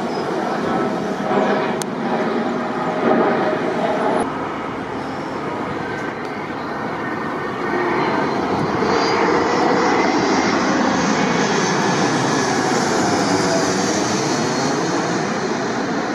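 Jet engines of an Airbus A220 airliner in flight, then, after an abrupt change about four seconds in, an A220 passing low overhead on landing approach. Its geared turbofans make a steady rush that grows louder about eight seconds in, with a slow phasing sweep as it passes over.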